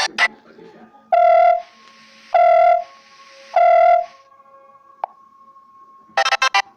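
Android 8.1 stock ringtones: one tune cuts off at the start, then a synthesized brass-like note sounds three times, each about half a second long and about a second apart. Near the end the next ringtone begins with a quick run of electronic beeps.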